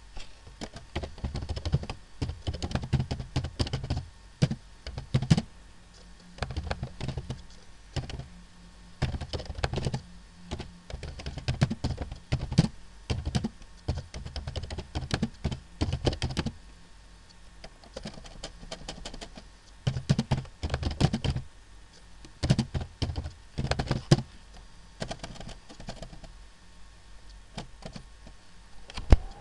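Computer keyboard being typed on in quick runs of key clicks, broken by short pauses of a second or two.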